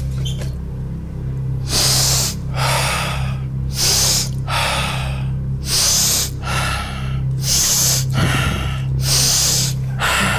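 A man breathing hard and forcefully in four rounds, each a short sharp breath followed by a longer rushing one, about every two seconds. He is breathing himself up just before a timed board-breaking attempt.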